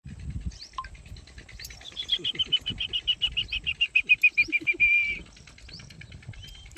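A bird calling: a rapid run of high notes, about eight a second, falling slightly in pitch and lasting about three seconds, starting about two seconds in. A few short, thin chirps sound elsewhere.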